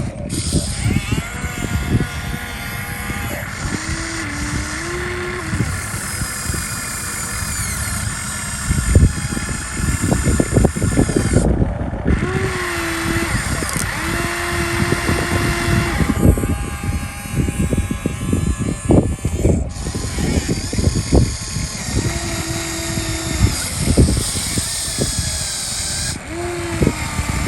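Radio-controlled model construction machines at work: small electric motors and a hydraulic pump whine in short spells of a second or two, stepping up and down in pitch, over repeated knocks and clatter.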